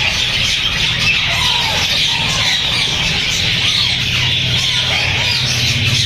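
Many caged birds chirping and squawking together in a continuous din, with a few separate calls standing out, over a steady low hum.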